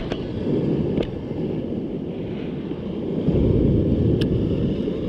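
Surf washing over shoreline rocks, with wind buffeting the microphone; the rush of water grows louder about three seconds in. A few sharp clicks cut through it, near the start, about a second in and about four seconds in.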